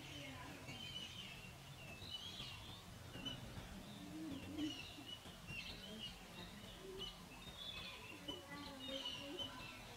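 Small birds chirping and calling in the background: many short, high calls scattered throughout, with a few lower notes mixed in.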